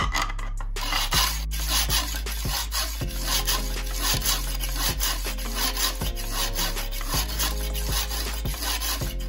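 A knife blade being sharpened by hand in a rod-guided jig. An abrasive-faced wooden block rasps back and forth along the steel edge in quick, even strokes, a few each second.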